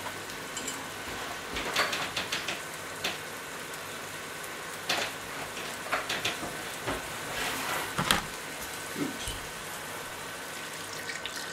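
Chopped onion frying in oil in a pan at medium heat: a steady, soft sizzle, with a few sharp clicks and knocks scattered through it.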